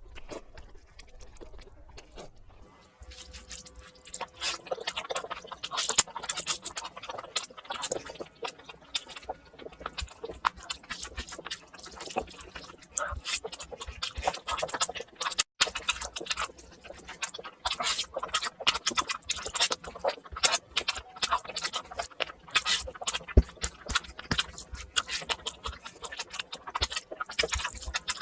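Mouth sounds of someone eating a brinjal (eggplant) dish, sped up four times: a dense run of rapid, wet clicks and smacks. It is sparse for the first few seconds and becomes continuous from about four seconds in.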